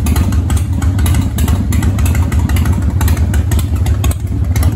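Harley-Davidson Street Glide's V-twin engine running loud and steady at a constant speed, with no revving.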